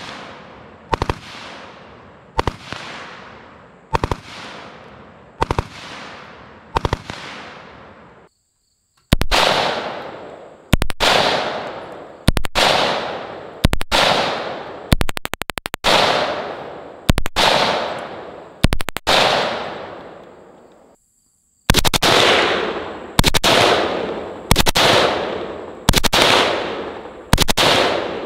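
Fully automatic firearm fired in short bursts of a few rounds, about one burst every second and a half, each followed by a long echo dying away. There is one longer burst midway. Twice the sound drops to dead silence for under a second.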